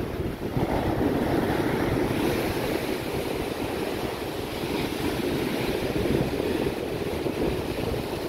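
Big waves breaking and washing up a sandy beach in rough southwest-monsoon (habagat) surf, a continuous rushing that swells about a second in, with wind buffeting the microphone.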